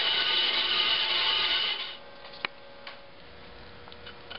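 A saw cutting a lengthwise slot into a wooden dowel. It is a steady rasping sound that stops about two seconds in, followed by a few faint handling clicks.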